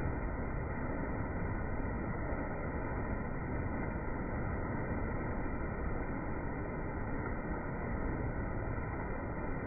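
Waterfall: a steady, even rush of falling water with no change in level, dull-sounding with no high end.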